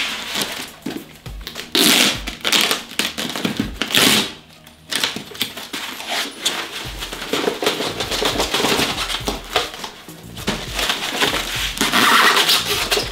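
Background music over the rustling and tearing of the foam wrapping as a parcel is unwrapped. There are louder tearing bursts about two seconds in, about four seconds in, and near the end.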